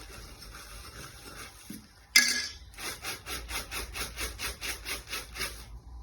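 A sudden loud sound about two seconds in, then steady rhythmic scraping, about four strokes a second, as dried peas are stirred in a pan for a snack.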